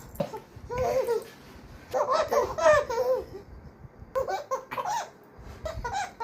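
A baby laughing in several bursts of high-pitched giggles, in clusters about a second in, from two to three seconds, around four to five seconds, and again near the end.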